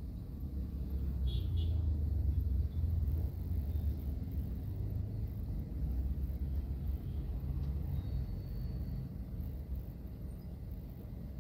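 Low, steady rumble of a car's engine and tyres on the road, heard from inside the cabin while driving. It swells over the first couple of seconds, then eases off a little.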